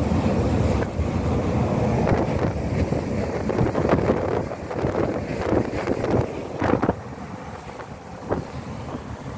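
Wind rushing and buffeting over the microphone of a phone filming from a moving vehicle, over the steady noise of the vehicle on the road. A few thumps come about two thirds of the way in, and the rush then drops to a lower level.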